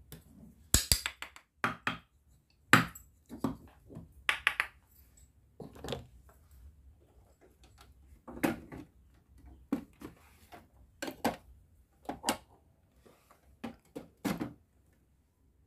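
Hard plastic toy food pieces, the halves of a toy pineapple, clicking and knocking as they are handled and set down: about a dozen separate sharp taps. Near the end a plastic toy microwave's door is handled.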